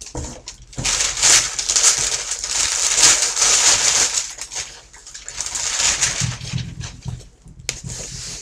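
Newspaper packing paper being crumpled and pulled out of a box: long stretches of loud rustling and crinkling, with a sharp click near the end.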